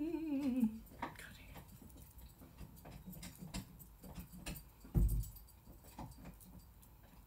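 A woman hums a short wavering note that falls away within the first second. Then comes a run of soft, irregular taps of a makeup blending sponge dabbed against the skin, with a dull thump about five seconds in.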